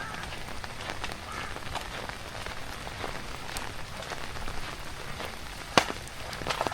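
Steady monsoon rain falling on surfaces, a constant hiss scattered with small drip ticks, with one sharp tap near the end.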